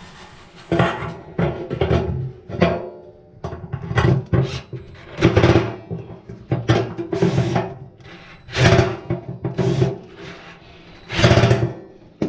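Repeated short rasping bursts of screws being driven that won't bite and just spin in their holes, over background music.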